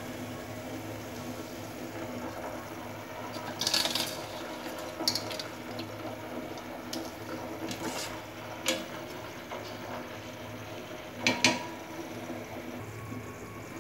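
Soaked basmati rice tipped from a steel bowl into a steel pot of boiling spiced water, the water bubbling and sloshing, with several sharp clinks of the vessels; the loudest are two close together near the end. The rice is being parboiled to about 80% done for dum biryani.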